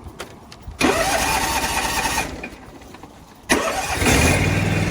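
Lawn mower engine cranked by its electric starter, boosted by a lithium jump starter because the mower's battery is dead. A first crank of about a second and a half dies out without catching. The second crank catches near the end, and the engine settles into a steady idle.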